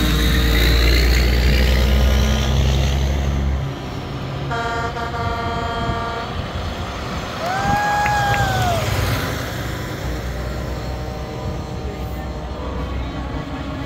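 A semi truck's diesel engine rumbles close by as it passes. About four and a half seconds in, a multi-note air horn blasts for a second and a half. A few seconds later a second horn sounds, a single note that rises and then sags in pitch, over the rumble of more trucks approaching.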